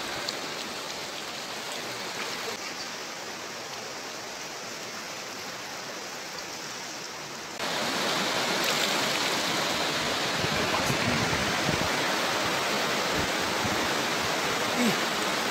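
Fast, muddy river in flood rushing over rocks: a steady rush of water that gets louder about halfway through.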